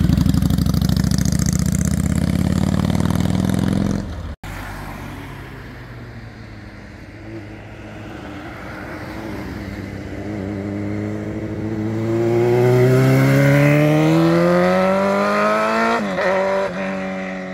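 Motorcycles passing on a winding road. First a V-twin cruiser goes by close with a low, steady engine note that stops abruptly about four seconds in. Then a sport bike accelerates out of a bend, its engine pitch rising steadily for several seconds before dropping sharply near the end.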